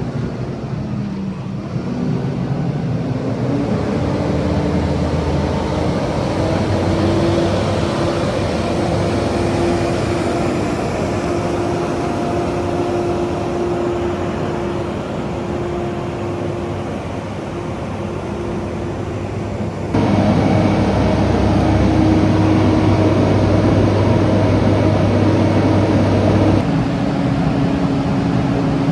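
Diesel engine of an asphalt paver running steadily, revving up about two seconds in. The engine sound jumps abruptly louder, to a different pitch, about two-thirds of the way through, and shifts again near the end.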